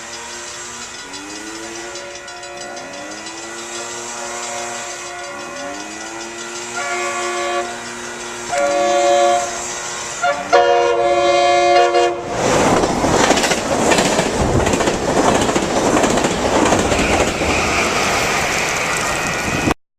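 A train horn sounds repeatedly, at first with tones sliding up in pitch and then in louder steady blasts, as a train approaches the station. About twelve seconds in, the train passes at speed, with a loud rush of wheel and rail noise. The sound cuts off abruptly near the end.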